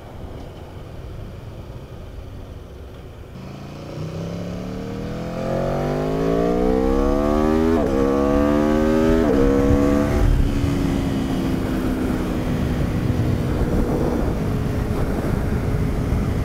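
Aprilia RSV4 RR's V4 engine accelerating hard: after a quiet first few seconds the revs climb, drop twice in quick upshifts about eight and nine and a half seconds in, then level off as wind noise takes over.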